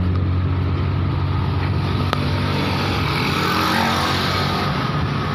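Truck engine running steadily with an even low hum.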